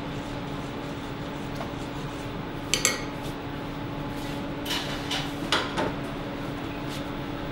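Dishes clinking: a couple of sharp clinks just under three seconds in, then a few more around five to six seconds in, over a steady low hum.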